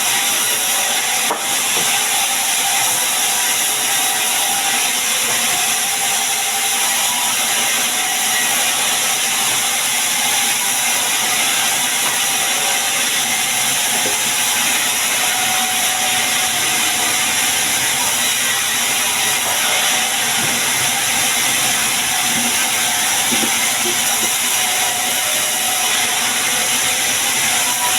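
Sawmill running steadily: a loud, even hiss with a faint steady whine underneath, unbroken throughout.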